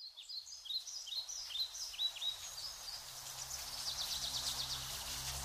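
Birds chirping: a run of short, repeated high chirps, then a fast high trill. A low, steady drone of soft music fades in underneath from about halfway.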